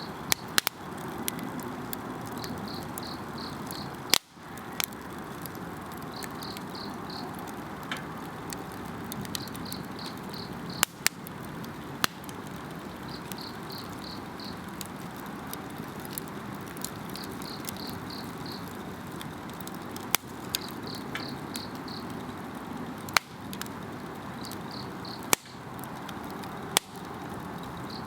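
Wood campfire burning with a steady hiss and sharp pops and crackles every few seconds, while an insect chirps in short high trills of about four pulses, repeating every two to three seconds.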